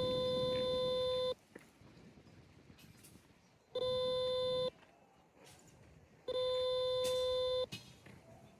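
Remote dog-training collar's pager function sounding three times: three steady, identical electronic tones of about a second each, with short pauses between. Each tone marks a tap of the remote's pager button, the cue for the dog to turn and move toward the handler.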